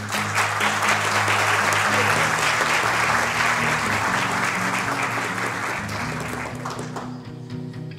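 An audience clapping in applause over background music, the applause dying away near the end.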